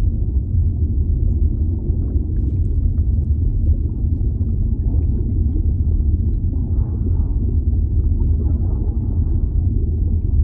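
Underwater ambience: a steady deep rumble of water, with faint whale calls rising above it in the middle.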